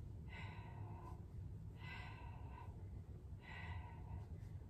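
A woman breathing out hard three times, about a second and a half apart, in time with switching legs in a Pilates core exercise: the breaths of effort from the ab work.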